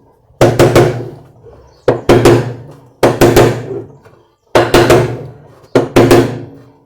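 Hammer blows on a Consul CWH12 washing machine's tub assembly, trying to knock loose a corroded, rotten support: five bursts of two to four quick strikes, each ringing on and fading before the next.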